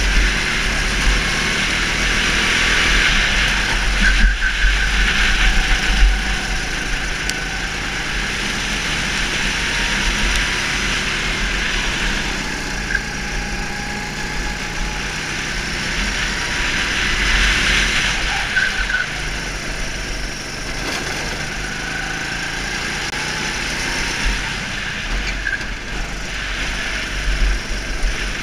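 Go-kart engine running under load from the driver's seat, its revs rising and falling in long swells as it accelerates and backs off through the corners, with a steady low rumble underneath.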